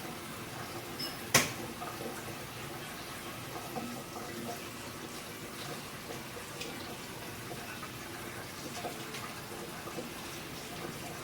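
Kitchen sounds: a steady watery hiss with scattered small ticks, and one sharp knock about a second in.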